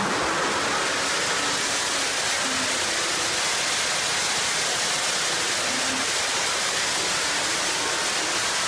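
Steady, unchanging rush of noise in an engine dyno cell holding a Kenne Bell twin-screw supercharged LS3, with no revving or change in pitch.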